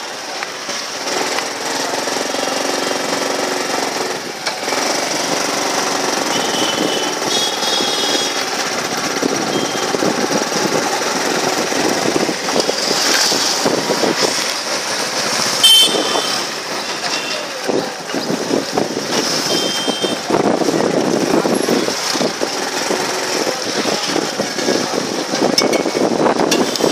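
Small vehicle engine running with a steady rattle while the vehicle moves slowly through busy street traffic, with a few short high-pitched tones over it.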